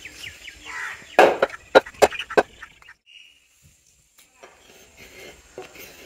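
Knife chopping country chicken on a wooden chopping block: four sharp chops in quick succession between about one and two and a half seconds in. After a brief near-silence come faint handling sounds.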